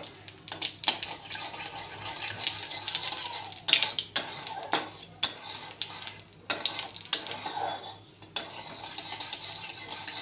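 Cumin seeds sizzling in hot oil in a metal kadai, with a metal spoon clinking and scraping against the pan again and again as the tempering is stirred.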